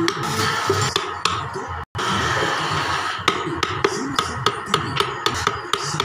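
Wooden mallet striking a carving chisel into wood in quick, irregular taps, over background music. The sound cuts out for an instant about two seconds in.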